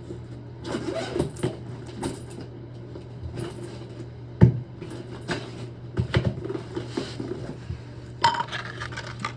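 Clinks and knocks of small metal valve parts and tools being handled while a toilet supply stop valve is taken apart for rebuilding, with one sharp knock about four and a half seconds in and a quick cluster of clicks about six seconds in, over a steady low hum.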